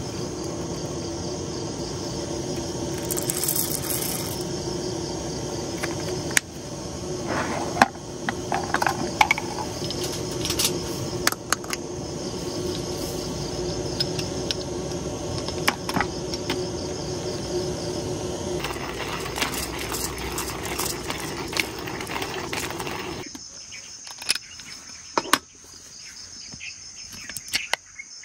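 Crickets chirping steadily, with a steady lower hum underneath that cuts off suddenly about 23 seconds in. Scattered clicks and knocks sound throughout.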